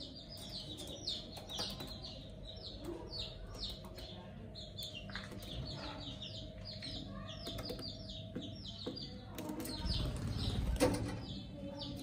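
Budgerigars chirping: a continuous string of short, high, downward-sliding chirps, about three a second, over a faint steady hum. A louder low rustle comes about ten seconds in.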